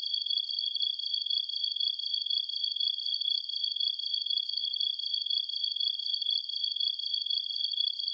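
Dense, unbroken chorus of late-summer night insects trilling at two high pitches.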